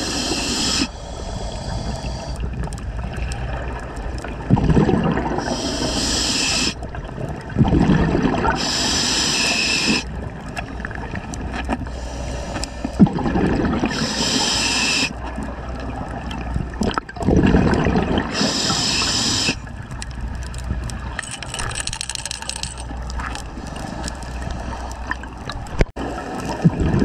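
A scuba diver breathing through a regulator underwater: a hissing inhalation about every four to five seconds, each followed by bubbling, gurgling exhaled air.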